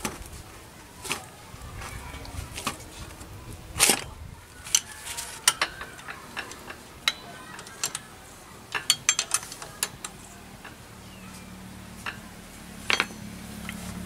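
Steel hand tools clinking and knocking against a scooter's CVT clutch: a socket wrench and a homemade clutch-holder tool are fitted onto the clutch nut and worked, with scattered sharp metallic clicks. A low steady hum comes in past the middle.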